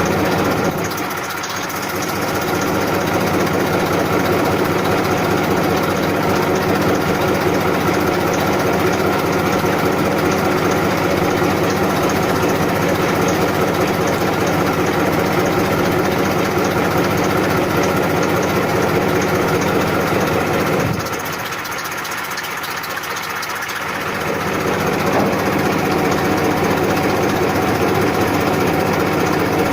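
Massey Ferguson 1035 DI three-cylinder diesel tractor engine idling with a steady hum. Its level dips briefly about a second in and again for a few seconds about two-thirds of the way through.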